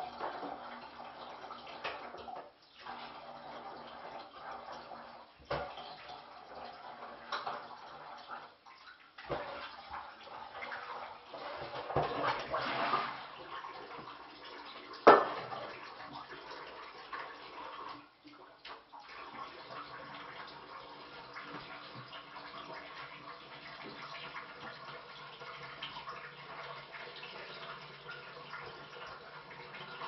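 Water running from a kitchen tap while dishes and pots are handled at the sink. There is a louder surge of water about twelve seconds in, and one sharp clatter a few seconds later.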